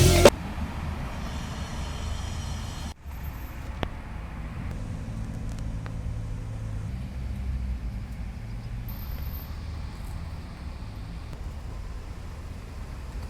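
Music cuts off just after the start, leaving a steady low background rumble, like distant traffic, with a brief dropout about three seconds in.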